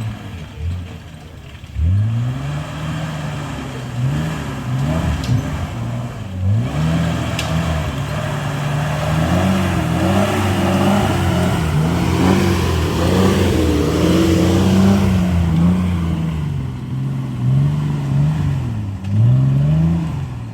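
Off-road vehicle engine revving up and down again and again in short pulls, held at higher revs for a few seconds in the middle, as when crawling over obstacles.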